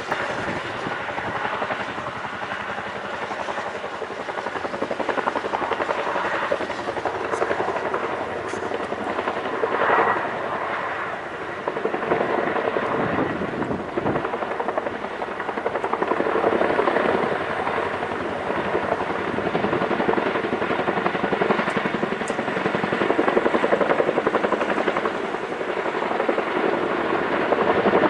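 CH-47 Chinook helicopter's tandem rotors and twin turbines running, a continuous dense chopping noise whose loudness swells and falls.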